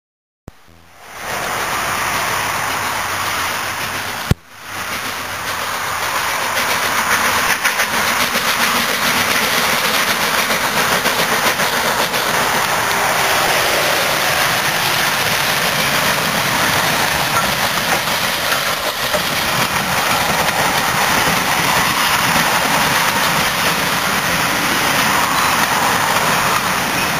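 Steam-hauled passenger train passing close by: the locomotive working under steam, then the coaches' wheels clicking over the rail joints, a steady loud rumble throughout. The sound is briefly cut off about four seconds in.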